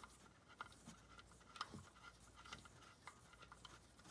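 Near silence with a few faint, scattered clicks from an oil drain plug being threaded in by hand on an Allen socket and extension.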